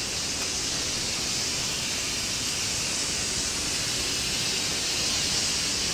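Electric pressure cooker venting steam through its pressure-release valve: a steady, high hiss as the built-up pressure is let off after cooking.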